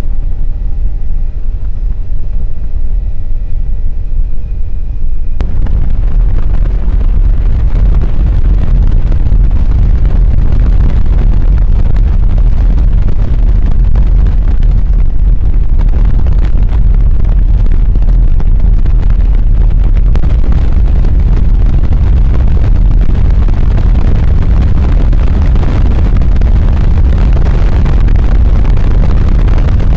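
Helicopter in flight with its doors off: a loud, steady roar of rotor and engine noise mixed with wind rushing over the microphone. About five seconds in, a steady whine of even tones drops out and the rushing noise gets louder.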